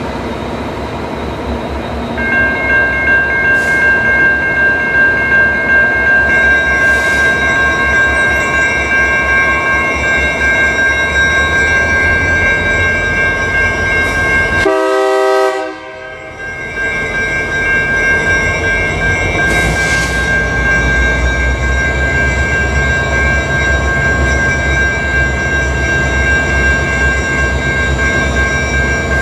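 Level-crossing warning bell ringing steadily from about two seconds in, over the low rumble of an EMD SD60 diesel locomotive that grows louder in the second half as it nears the crossing.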